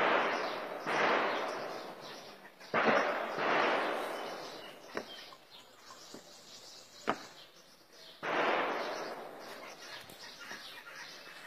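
Gunfire from an ongoing firefight heard at a distance: about five heavy reports, each trailing a long rolling echo that fades over a second or two, with two sharp single cracks about five and seven seconds in.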